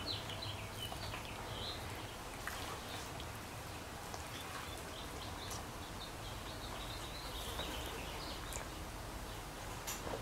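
Faint bird chirps, short and scattered, over a steady low hum.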